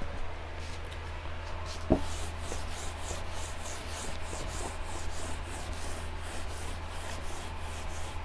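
A felt whiteboard duster wiping marker writing off a whiteboard: a single knock about two seconds in, then a run of back-and-forth rubbing swishes, about two or three strokes a second.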